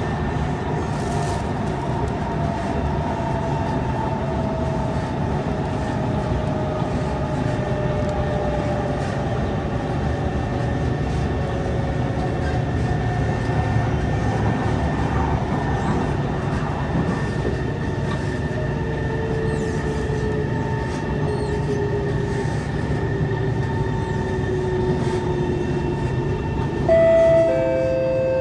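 Inside a Kawasaki C151 metro car in motion: steady wheel-and-track rumble under the electric traction motors' whine, which slowly falls in pitch as the train slows. A louder two-note chime sounds near the end.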